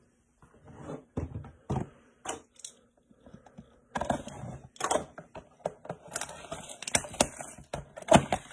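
A cardboard box of Donruss Elite football cards being handled and opened: a string of light knocks and clicks as it is picked up, then from about four seconds in denser rustling and tearing of cardboard and packaging with sharp snaps.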